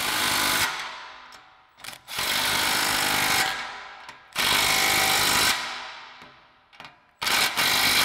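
Cordless impact wrench hammering in four short runs of about a second each, with pauses between, as it drives a 15 mm socket to tighten the exhaust band clamp nuts.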